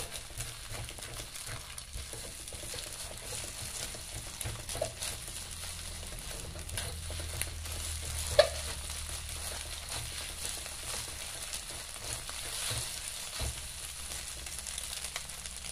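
Egg sizzling in hot oil in a wok as it is stirred and broken up with a spatula, the spatula scraping over the pan. A single sharp click about halfway through is the loudest sound.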